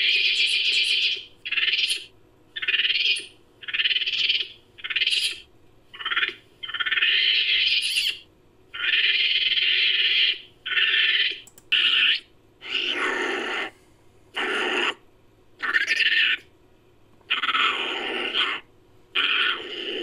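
Home-made sound effect of long-tailed macaque calls: a series of about fifteen short animal-like calls, each up to about a second and a half long, separated by brief gaps. Past the middle the calls take on a deeper, fuller tone.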